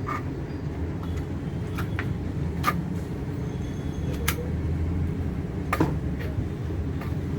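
A few sharp clicks and taps as DDR4 RAM sticks are handled and pressed into the motherboard's slots, the loudest near the middle and again about three-quarters through, over a steady low rumble.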